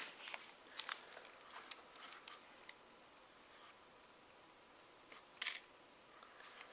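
Nickels clinking together as a hand picks through a pile of them in a felt-lined tray. There is a run of light clicks over the first few seconds, then one louder clink about five and a half seconds in.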